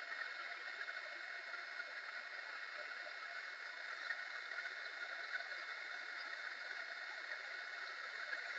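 Small handheld heat gun running, its fan blowing a steady hiss with a few faint steady tones, melting the solder ring and shrinking the sleeve of a solder seal wire connector.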